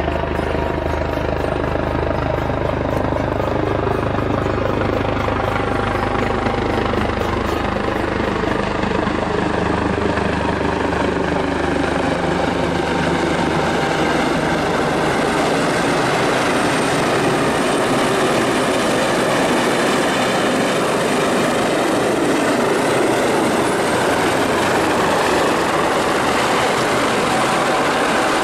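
US Coast Guard MH-65 Dolphin helicopter flying low overhead and approaching, its rotor and turbine noise running steadily with a slow, sweeping shift in tone as it moves. A deep rumble under it fades after about ten seconds.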